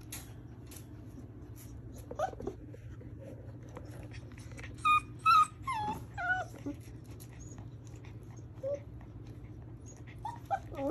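Young puppy, about four weeks old, whimpering in short high cries. The loudest come in a cluster a few seconds in, several sliding down in pitch, with more near the end.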